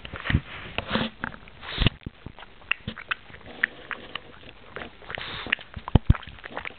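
A pug chewing a peanut with wet, squishy mouth noises and snuffling through its nose, in irregular short clicks and bursts.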